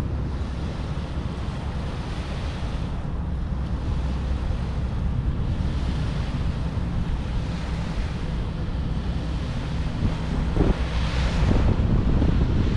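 Wind buffeting a handlebar-mounted GoPro on a road bicycle being ridden along, heard as a steady low rumbling noise. It gets louder near the end.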